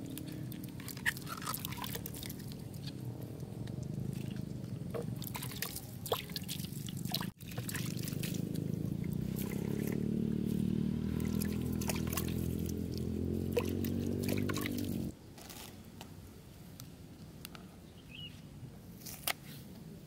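Water poured and trickling over bok choy leaves as they are rinsed. After a brief break, a second pour rises steadily in pitch, as water does when it fills a container, and it cuts off suddenly about three-quarters of the way through. A few faint ticks follow.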